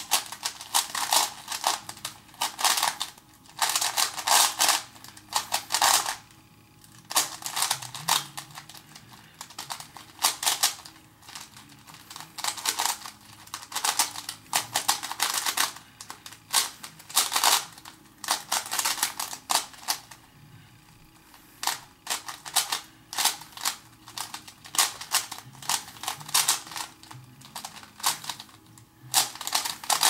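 A Dayan MF8 4x4x4 speed cube with a ball core being turned fast by hand during a solve: rapid runs of clicking plastic layer turns, broken by brief pauses, the clearest about seven seconds in and around twenty seconds in.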